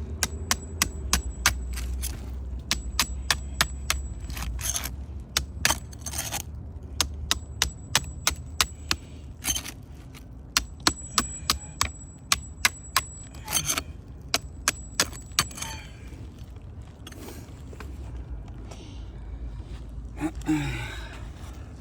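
Hammer work on a 3-tab asphalt shingle roof: runs of sharp, ringing metal taps, about three or four a second, broken by short pauses and scraping.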